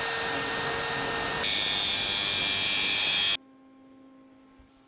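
Angle grinder grinding a steel exhaust header flange: a loud, steady grinding noise whose tone changes about a second and a half in. It cuts off abruptly after a little over three seconds, leaving a faint steady hum.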